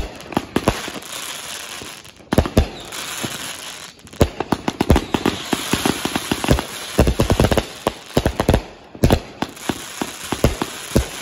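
Brothers Pyrotechnics Atom Bomb and Cobalt Bomb fireworks going off together: dense crackling with many sharp pops, easing briefly about four seconds in and again near nine seconds before picking back up.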